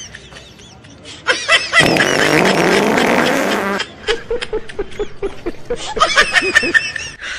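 A long, wet fart sound effect from the prank about two seconds in, followed by a man laughing in short, repeated bursts from a comedy clip.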